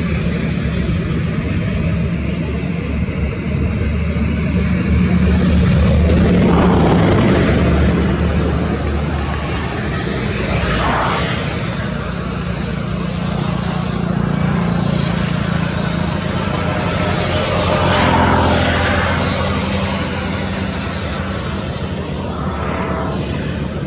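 Motor engine noise: a steady low drone, with louder swells of noise passing by several times.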